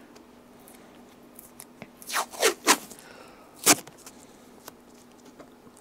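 Adhesive tape pulled off a roll and torn: three quick rips a little over two seconds in, then one sharp rip about a second later.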